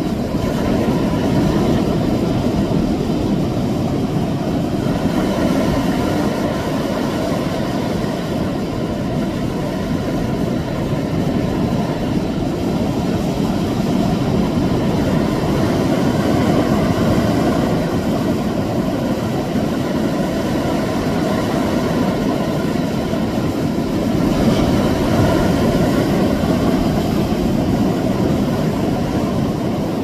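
Sea waves washing against shoreline rocks: a continuous low rushing wash that swells gently every several seconds.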